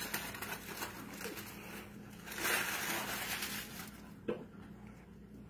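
Paper burger wrapper crinkling and rustling as it is handled, loudest for about a second in the middle, with a short knock near the end.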